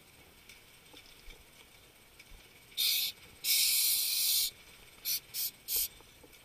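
Compressed air hissing in bursts from a hookah diving regulator: one short burst, a longer burst of about a second, then three quick short ones.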